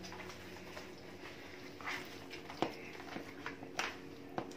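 A hand beating soft, wet yeast dough (flour, yeast, oil and water) in a plastic bowl: irregular squelching slaps a second or so apart from about two seconds in, over a faint steady hum. The dough is still too thick, with water being worked in a little at a time.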